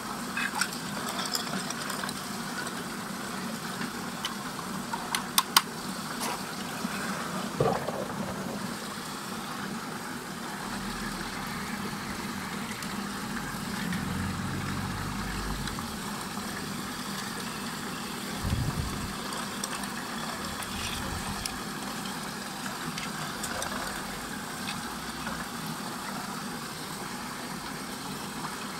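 Steady rushing of water swirling down a whirlpool vortex, with a low hum under it. A few sharp clicks come about five seconds in, and a couple of dull knocks come later.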